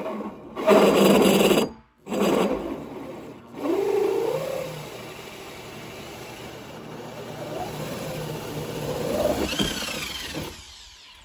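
Corded power drill with a hole saw cutting a round hole through the plastic top of a water tank. It runs in several short bursts, its motor pitch bending up and down as the saw bites, then settles into a longer steady run that rises in pitch and stops shortly before the end.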